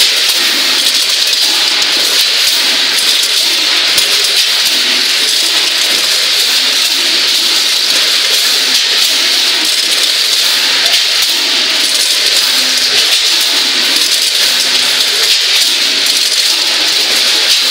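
20-head multihead weigher running: a steady, dense rattling hiss of nuts jostling along its vibrating radial feeder pans and into the weigh hoppers.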